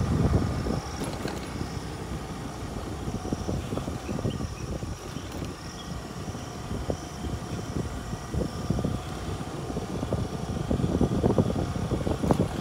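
A vehicle driving over a rough off-road track: a steady low rumble with frequent irregular jolts and knocks from bumps, growing louder near the end.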